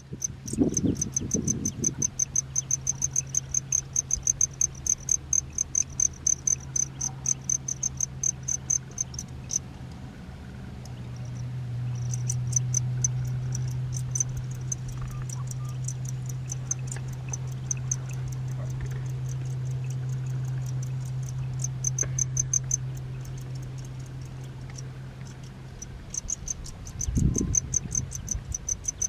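Crickets chirping in a fast, even pulse, with a short break about ten seconds in, over a steady low hum that grows louder through the middle stretch. Brief low rumbles near the start and again near the end.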